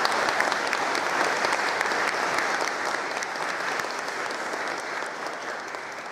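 Audience applauding at the end of a lecture, the clapping slowly dying down.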